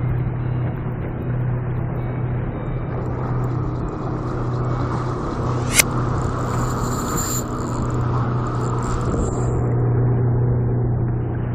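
Steady low hum of a motorboat's engine running, with one sharp click about six seconds in.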